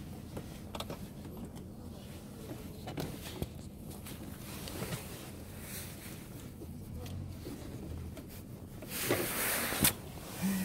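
Hands working behind the glove box at the cabin air filter housing, with faint scattered clicks and knocks. About nine seconds in, a scraping rustle of about a second as the old cabin air filter slides out of its slot, ending in a sharp click.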